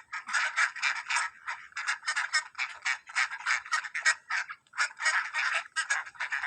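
A flock of ducks quacking in rapid, overlapping calls, several a second, with only brief lulls.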